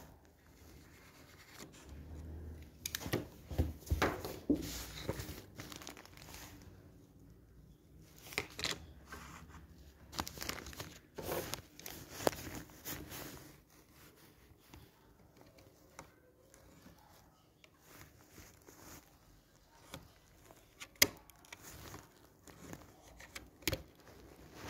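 Irregular crinkling and tearing handling noises in bursts, heaviest early on and around the middle, with a single sharp click about 21 seconds in.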